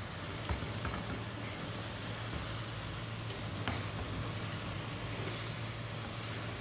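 Noodles being stir-fried in a frying pan on a gas stove: a steady hiss and low hum under the tossing, with a few light clicks of the wooden spatula against the pan, about half a second in and again a little past the middle.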